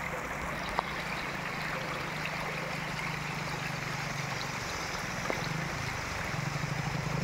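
Floodwater from a breached canal flowing across a road in a steady rush, with a motorcycle engine humming underneath that grows louder and pulses near the end as the bike rides through the water.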